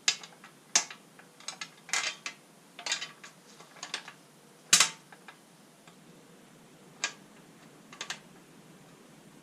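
Bolts, washers and parts being handled and fitted by hand during a bolt-on install: a scattered run of sharp clicks and clacks, the loudest about five seconds in.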